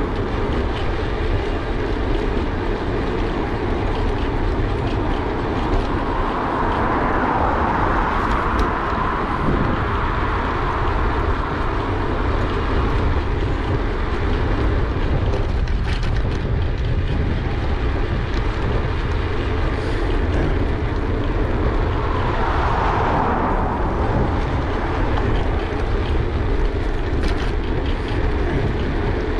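Steady wind rumble and rolling noise from a moving e-bike, buffeting the GoPro camera's microphone.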